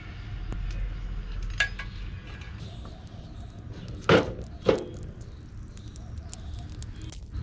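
A tin box packed with wood clinks twice against the clay stove as it is set down over the fire. The two sharp metallic knocks come about four seconds in, half a second apart, over a low steady rumble.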